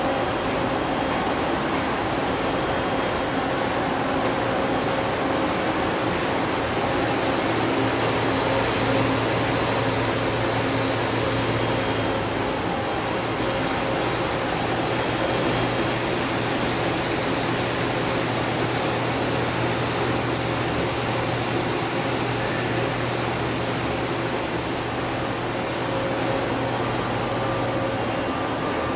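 Doosan Daewoo Puma 2000SY CNC lathe running under power: a steady mechanical hum and whir with faint high whines. A deeper steady hum comes in about seven seconds in and drops out near the end.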